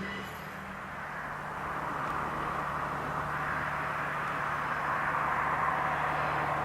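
KiHa 120 diesel railcar running, a steady low engine drone under a hiss of running noise that slowly grows louder.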